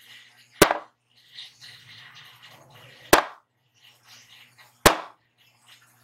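Three sharp, loud bangs about two seconds apart, each over in a split second. They are loud enough to drive a handheld sound level meter above 100 dB.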